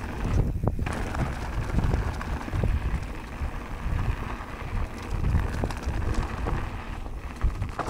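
Wind rushing over the microphone and mountain-bike tyres rumbling over a dirt trail at speed, with occasional knocks and rattles from the bike over bumps.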